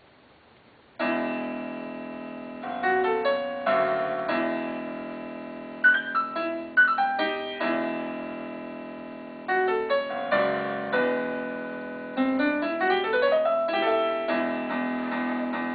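Piano-like keyboard music starting suddenly about a second in: struck chords and melody notes that ring and fade, with a quick rising run of notes about two-thirds of the way through.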